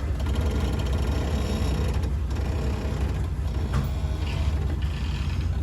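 Pickup truck engine running steadily under load in four-wheel drive as it pulls on a tow line to drag a stuck old tractor free.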